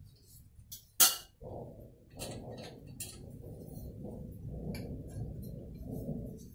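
A sharp metal clink about a second in, then rubbing and scraping with small clicks as a perforated aluminium deep-fryer basket is handled and worked on by hand.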